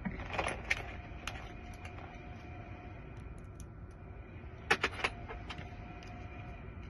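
Small sharp metallic clicks and taps from a lock cylinder being shimmed and its plug worked out, with a short cluster of louder clicks about five seconds in and a faint metallic ring after an early click.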